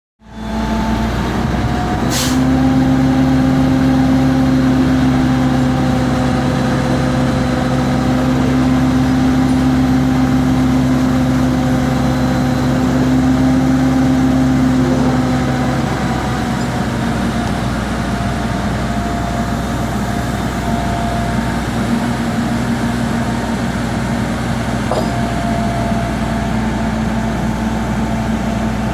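Heavy engine of tree-removal machinery running steadily, its note settling a little lower about halfway through. A sharp click about two seconds in.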